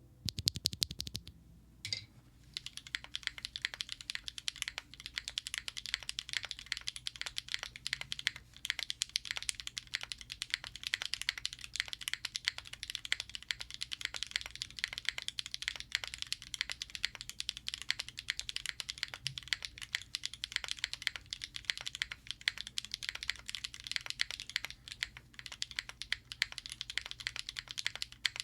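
Fast, continuous typing on a mechanical keyboard fitted with Wingtree tactile switches (POM stems, PA66 housings, factory-lubed), a clacky keystroke sound with some scratch.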